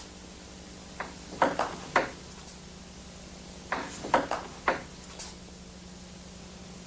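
Table tennis ball knocking back and forth between bats and a Stiga Expert table in quick rallies: a run of four sharp clicks about a second in, then five more from about halfway, over a steady low hum.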